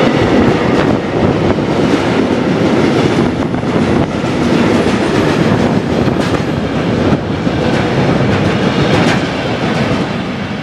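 Freight train of intermodal container and tank wagons rolling past at close range, wheels clattering rhythmically over the rail joints. The noise eases near the end as the last wagon goes by.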